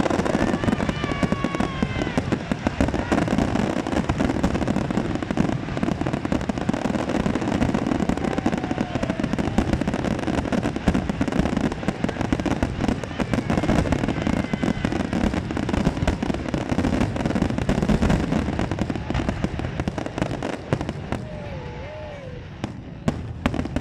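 Fireworks display at full intensity: a dense, continuous barrage of rapid bangs and crackles. It thins out in the last few seconds to a few separate bangs.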